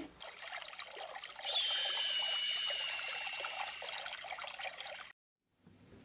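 A hissing, trickling sound like liquid being poured, with a high whistling tone through the middle. It cuts off suddenly about five seconds in.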